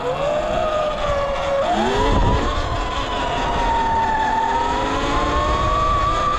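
72-volt electric dirt bike's motor whining under acceleration. The whine sags, then climbs sharply about two seconds in and holds high as the bike picks up speed.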